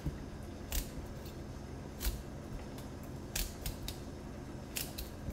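Chef's knife cutting broccoli florets on a wooden board: several sharp, irregularly spaced knocks as the blade snaps through the stems and strikes the wood.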